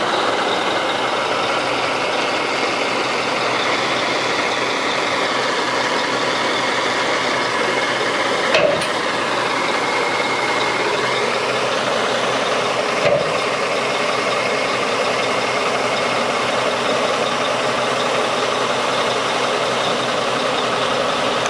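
1992 Mack RD600's EM6-300 six-cylinder diesel engine running steadily, with two short knocks about 8.5 and 13 seconds in.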